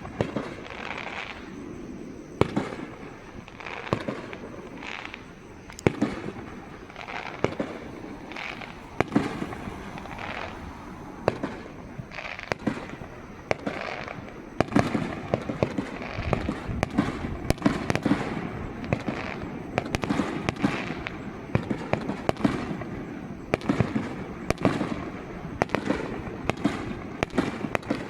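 Aerial fireworks display: shells bursting one after another, sharp booms about every second, coming faster and denser from about halfway through.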